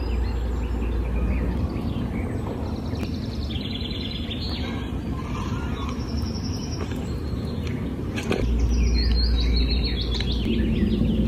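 Birds chirping in many short calls and quick falling notes, with a steady low rumble underneath that grows louder near the end.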